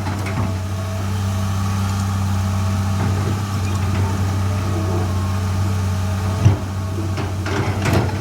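Excavator's diesel engine idling steadily, with a single sharp knock about six and a half seconds in and a few short clanks near the end.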